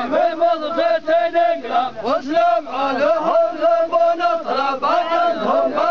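A group of men chanting a zamil, the Yemeni tribal poem, together in unison, with long held notes and short breaks between phrases.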